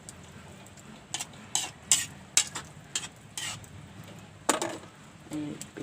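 A cooking utensil knocking and scraping against a pot while the finished dish is stirred: a quick run of sharp clinks, then a louder one about a second later.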